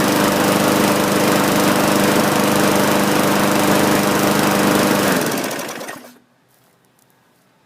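Murray push mower's 500-series 5.0 hp Briggs & Stratton engine running steadily, then shut off about five seconds in and spinning down to a stop about a second later.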